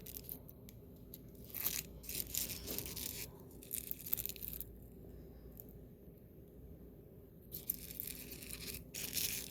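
Plastic packaging being handled, with bursts of rustling and crinkling and a quieter pause in the middle.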